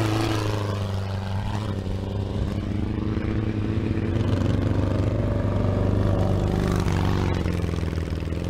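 Off-road Volkswagen Beetle race cars' engines running hard, a continuous engine drone whose pitch bends slowly up and down as the cars accelerate and ease off.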